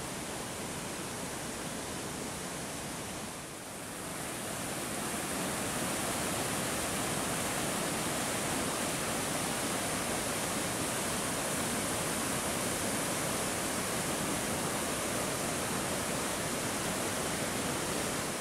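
Steady rush of a waterfall and river rapids swollen and muddy after heavy rain. It dips briefly about three and a half seconds in, then comes back a little louder.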